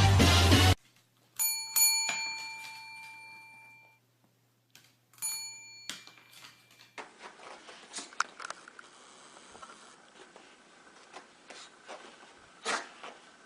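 A bell chime: two quick strikes that ring out and fade over about two seconds, then one more strike a few seconds later that is cut off. After that come faint scattered taps and rustling.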